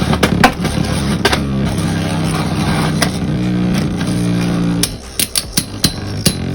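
Background music with plucked, guitar-like notes that stops about five seconds in, over sharp clicks; after the music ends, the clicks go on as Beyblade spinning tops clash in the stadium.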